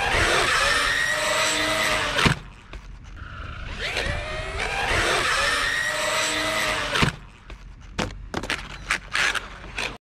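Electric RC truck motor whining as it speeds up and slows down. It cuts off sharply about two seconds in, then winds up again and runs for a few seconds. It ends in a run of short, sharp knocks and clatters.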